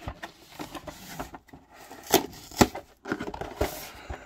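A cardboard box being opened by hand: rustling and scraping of the carton, with a few sharp snaps as the glued top flap is pulled free, two of them about half a second apart around two seconds in.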